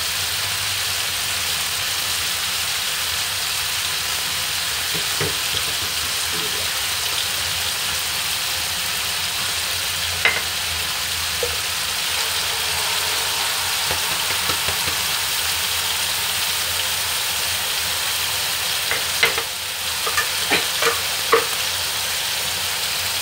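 Marinated chicken pieces sizzling steadily as they fry uncovered in an oiled pan over high heat. A few sharp clicks, like a utensil knocking against a pan, come near the end.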